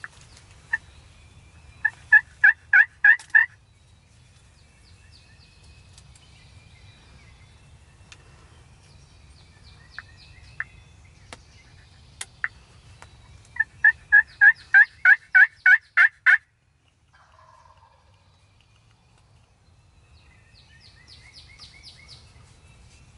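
Turkey pot call scraped with a wooden striker, giving two runs of hen yelps: a short run of about seven notes, then a longer run of about a dozen, roughly four to five a second. This is the call used to draw a gobbler in.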